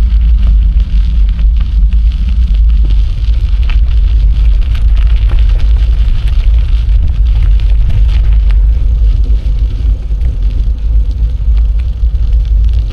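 Wind buffeting the microphone of a moving bicycle, a loud continuous low rumble, over a fainter hiss and small ticks of the tyres rolling on the path.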